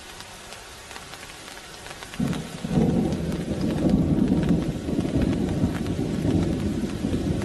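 Steady rain with scattered drop ticks; about two seconds in, a long low roll of thunder begins and rumbles on loudly through the rest.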